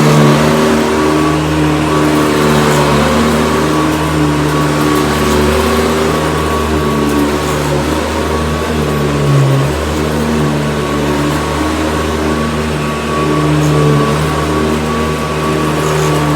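Hoover Decade 80 upright vacuum cleaner (6-amp motor) running, a steady motor hum with a thin whine on top; its lower tones swell and ease as it works.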